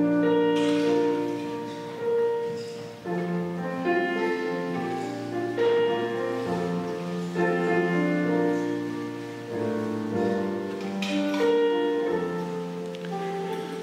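Slow instrumental music from a piano and other instruments, playing held chords that change every second or two.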